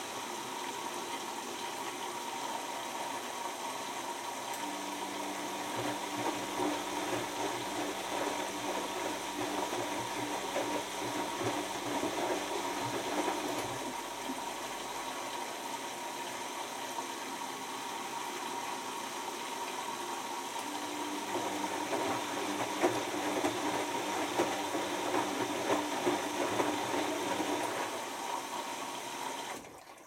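Bosch Maxx 6 (WAE24063GB) front-loading washing machine mid-wash: water rushing and sloshing in the drum, with the drum motor humming through two spells of tumbling, each several seconds long. The sound cuts off suddenly near the end.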